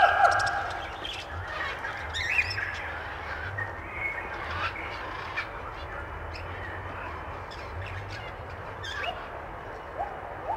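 A steady noisy background with a few short, scattered bird-like chirps and calls, about two and a half, four and a half and nine to ten seconds in.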